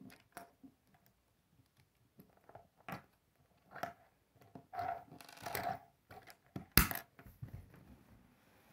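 K'nex plastic rods and connectors being handled and pressed together on a wooden table: scattered small clicks, knocks and rattles, with one sharp, loud click about two-thirds of the way through.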